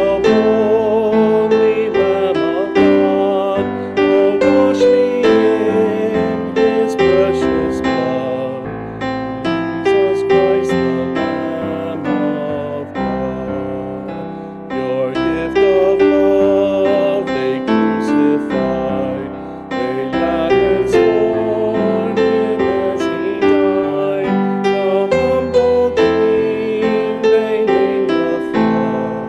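Slow worship song: piano accompaniment under a singing voice holding long, wavering notes.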